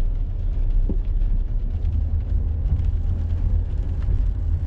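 Steady low rumble of a car heard from inside the cabin as it drives slowly over wet pavement: engine and tyre noise.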